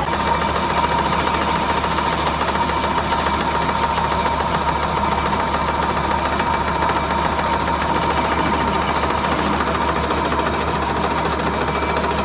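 Metal lathe running and turning a metal part with a cutting tool: a steady mechanical whir under a steady high tone from the cut.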